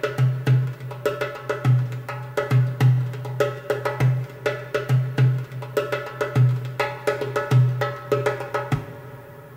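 Music with a fast, clattering percussion rhythm over a pulsing bass note; it stops abruptly near the end and dies away.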